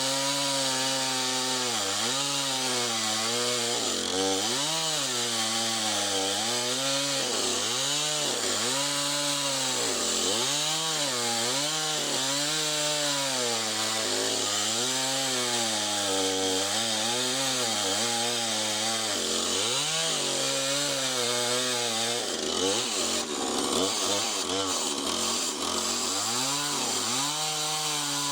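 Husqvarna 450 Rancher two-stroke chainsaw with a 20-inch bar ripping lengthwise through a large black oak log, the engine pitch sagging and recovering every second or two as the chain bites under load. In the last few seconds the engine runs higher and less steadily.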